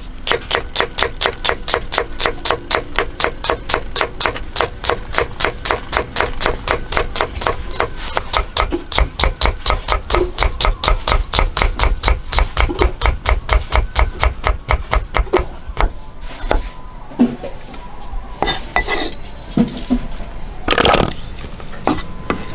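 Steel cleaver slicing bitter melon on a wooden chopping board: fast, even chops at about four to five a second, each blade stroke knocking on the board. The chopping stops after about sixteen seconds, leaving a few scattered knocks and one louder clatter near the end.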